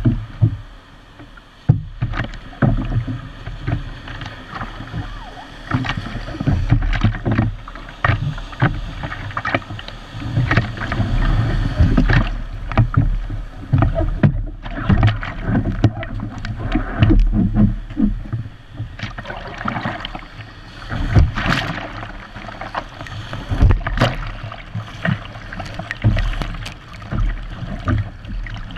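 Water sloshing and slapping against a surf ski's hull, heard through a camera mounted on its bow. Irregular splashes and knocks come as the paddler climbs aboard and starts paddling through the shallow surf, over a steady low rumble.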